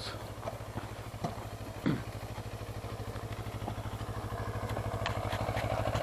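An engine running steadily, with an even low throb that grows gradually louder over the last few seconds.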